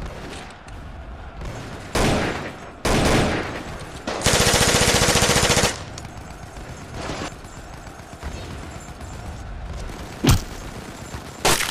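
Sound-effect gunfire from a battle: a few separate shots, then a rapid machine-gun burst about four seconds in that lasts about a second and a half, and two sharp shots near the end.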